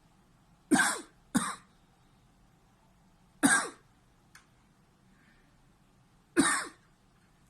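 A man coughs four times in sharp single bursts: two in quick succession, then two more about three seconds apart. It is a reflex cough, set off by pressure on a schwannoma of the right vagus nerve in his neck.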